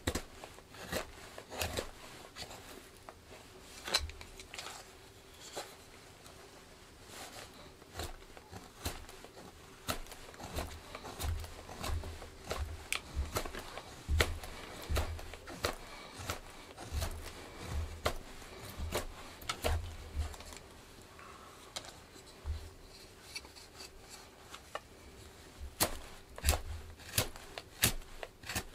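Freshly Scandi-sharpened Mora Companion knife carving a seasoned yew spatula blank: a run of short, irregular slicing cuts and scrapes through the wood, with some dull low thumps mixed in.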